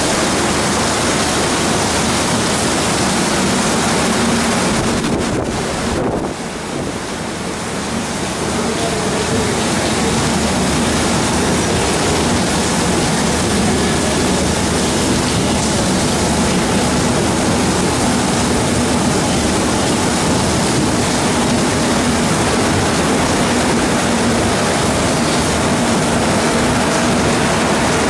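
Heavy monsoon rain pouring steadily onto a station platform and train roofs, with a faint steady hum beneath it. The rain sound dips briefly about six seconds in.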